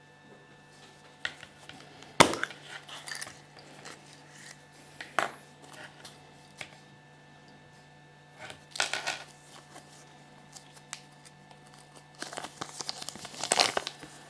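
Wrapping being crinkled and torn in several short bouts, with a sharp click about two seconds in and a longer stretch of crinkling near the end: Kinder Surprise egg or toy packaging being opened by hand.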